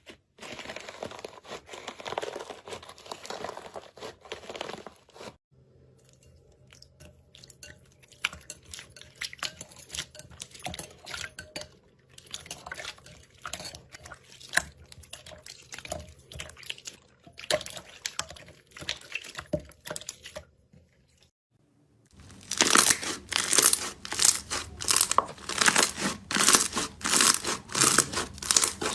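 Slime being squeezed and worked by hand, making sticky crackling, popping and crunching sounds, with short breaks between clips. For the last seven seconds the crackling is much louder, a rapid run of crisp crunching pops.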